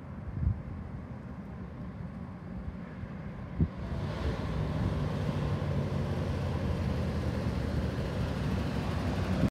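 Square-body GM C60 medium-duty flatbed truck approaching on a gravel road: a low engine rumble, with the engine note and gravel tyre noise growing louder about four seconds in and then holding steady. Two brief thumps come before that.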